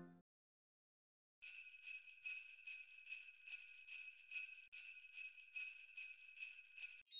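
Sleigh bells jingling, shaken in a steady rhythm of about two shakes a second; they start about a second and a half in and stop shortly before the end.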